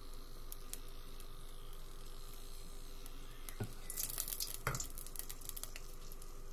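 A wooden spatula stirs a soy-sauce and caramel broth in a stainless steel pot as it heats toward the boil, with light crackling. The spatula knocks against the pot twice around the middle, and the crackling thickens briefly after the first knock.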